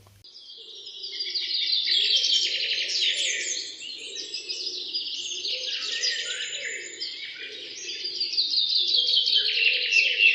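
A dense chorus of small birds chirping and twittering without a break. It swells up over the first couple of seconds and then carries on steadily.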